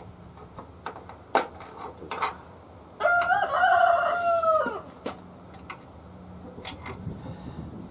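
A rooster crowing once, for about a second and a half, starting about three seconds in. Around it come a few sharp clicks and knocks of plastic trim being handled.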